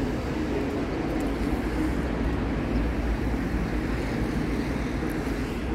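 Steady low outdoor rumble with no single sound standing out, the kind of blended background of a seafront.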